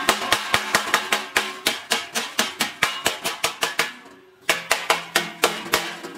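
Small hammer rapidly tapping on steel at a freshly welded joint, about four sharp metallic strikes a second, typical of chipping slag off a stick weld. The tapping stops briefly a little after four seconds in, then resumes.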